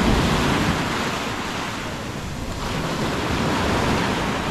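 Black Sea surf washing onto the beach, the noise swelling at the start, easing about two seconds in and building again toward the end.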